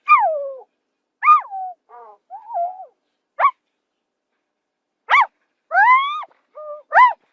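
Zebra calling: a series of about nine short, high, bark-like yelps, some falling and some rising in pitch, with a pause of about a second and a half midway.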